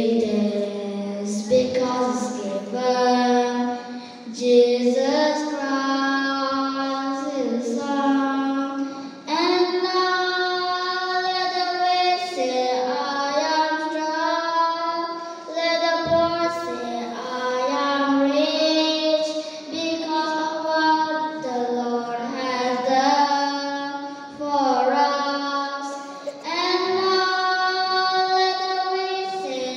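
A young girl singing a solo into a microphone, gliding between long held notes.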